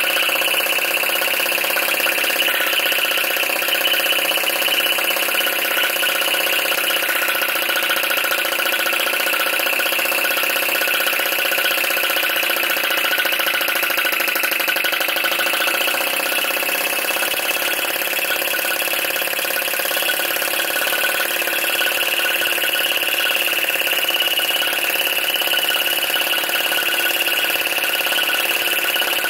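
PM Research Solar Engine #3, a small flame-licker (vacuum) engine, running steadily with a fast, even mechanical clatter as its flywheel spins.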